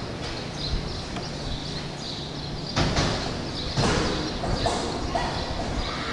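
Two loud bangs about a second apart, over steady background noise, with a few smaller knocks after them.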